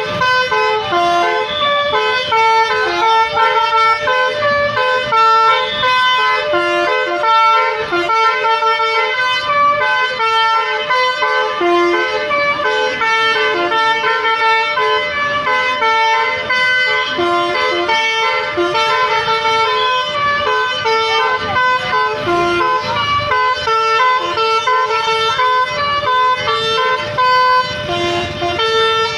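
Basuri telolet horn, a multi-tone musical bus horn, playing a melody. It sounds as a continuous run of short horn notes at changing pitches, with several sounding together.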